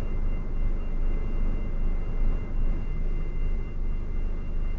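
Steady low machinery rumble heard inside a stationary truck cab on a ferry's vehicle deck, with a faint steady high-pitched whine over it.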